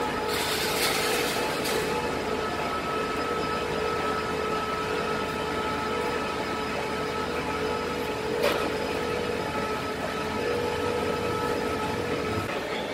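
Liebherr LTM 1300 mobile crane running under load as it hoists a cooling-tower cell: a steady engine drone with a steady whine over it that stops near the end, and one sharp click about eight and a half seconds in.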